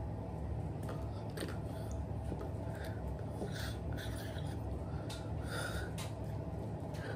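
Steady low hum of room and microphone noise, with scattered short breath and lip sounds from a person signing.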